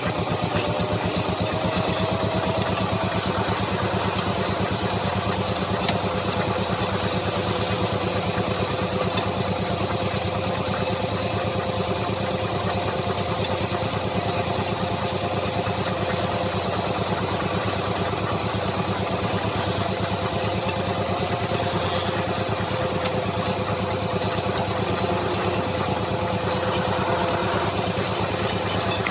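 Wood lathe running steadily: a motor hum with a few steady tones over a continuous hiss.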